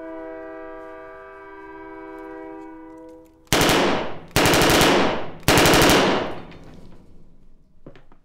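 A held chord of several steady tones fades over about three seconds. Then a submachine gun fires three bursts of rapid shots, each under a second long.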